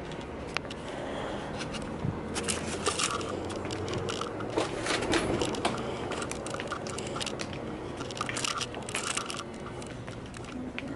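Crackling, rustling handling noise from a handheld camera carried at a walk, with irregular clicks and scrapes throughout.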